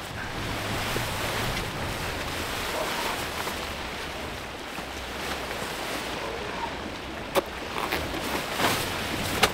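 Steady rush of wind while a canvas pop-up hub tent is pulled open, with a couple of sharp snaps in the last two seconds as it is hauled up.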